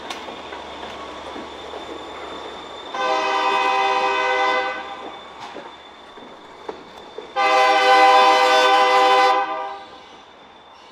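Diesel locomotive horn sounding two long blasts, the second a little longer and louder, after a few seconds of the low rumble of the locomotive moving on the track.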